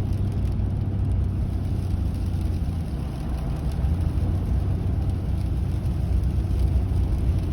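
Steady low rumble of a vehicle driving: engine and road noise heard from inside the moving car, with no distinct events.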